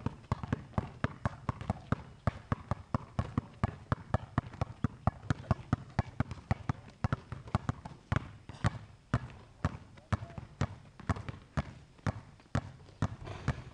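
Two basketballs dribbled together on an asphalt court: a fast, steady run of bounces, about five a second.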